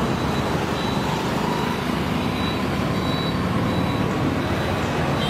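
Steady street traffic noise with a low rumble of vehicle engines.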